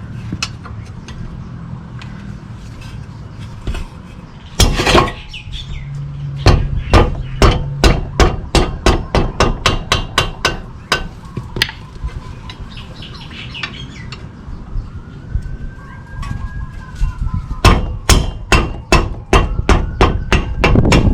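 Ratchet and socket loosening the front brake caliper mounting-bracket bolts: two runs of sharp, even metal clicks, about three a second, one for each bolt, with a single knock before the first run.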